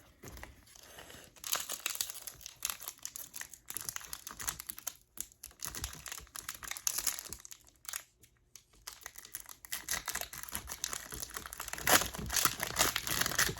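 Foil Pokémon booster pack wrapper crinkling as it is handled and torn open. The rustling comes in spells with two short pauses near the middle.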